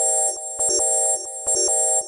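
A stock Nokia T26 phone tone playing: a synthesized electronic melody that swells about once a second, with a bright high ring over mid-range notes.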